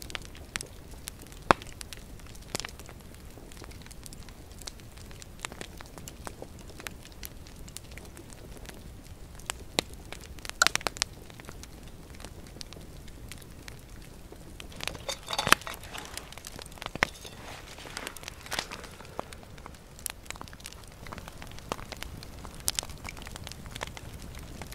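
Wood campfire crackling, with irregular sharp pops and a flurry of louder pops a little past halfway.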